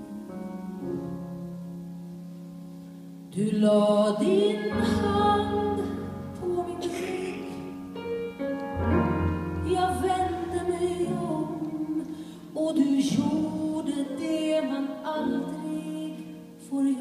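A woman singing a slow ballad, accompanied by piano and double bass. The first few seconds hold only soft held accompaniment; the voice comes in about three seconds in, louder, with a clear vibrato on the held notes.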